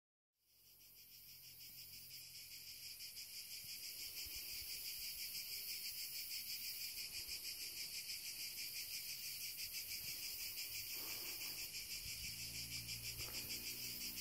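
Chorus of cicadas buzzing steadily with a fast, even pulsing, fading in over the first few seconds.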